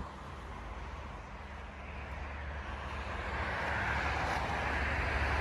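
A vehicle running: a steady low engine hum with a hiss that grows gradually louder.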